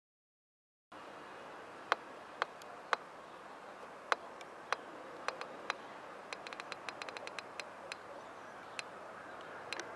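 About a second of dead silence, then a steady background hiss with sharp, irregular clicks, including a quick run of a dozen or so a little past halfway.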